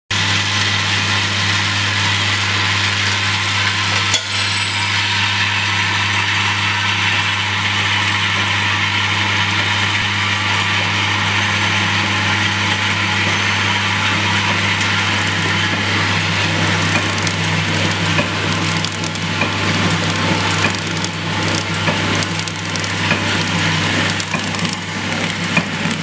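Dishwasher-tablet flow packing machine running: the vibratory bowl feeder gives a steady low hum, with the tablets rattling as they are fed along. A sharp click comes about four seconds in, and more irregular clicks and rattles join in later.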